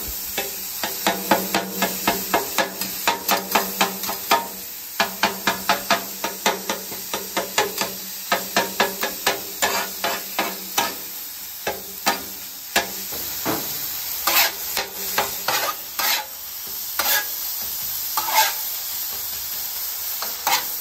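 Two metal spatulas chopping seared ground-beef patties on a Halo Elite flat-top griddle, clacking against the griddle top about three times a second. The strikes thin to occasional ones in the second half, over a steady sizzle of frying beef.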